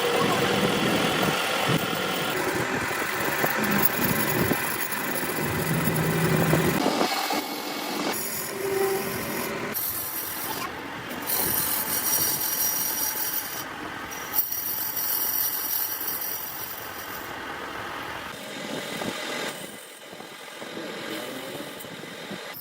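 Metal lathe running and cutting a worm thread: a steady mechanical noise with faint whining tones, its character changing suddenly several times.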